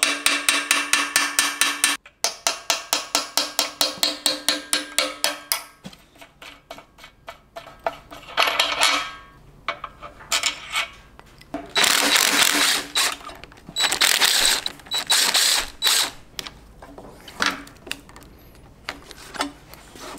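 Hammer striking a steel punch against the steering-stem castle nut of a Honda CBR1000RR to drive it loose: rapid, even, ringing metal taps, about four to five a second, that fade into lighter taps about six seconds in. In the second half come several short bursts of metal scraping and rattling.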